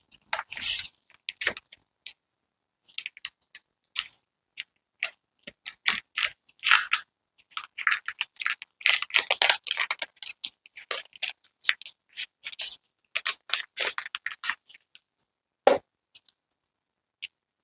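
Unboxing packaging being handled: irregular crinkling, rustling and clicking as the box is opened and its contents taken out, with a sharper knock near the end.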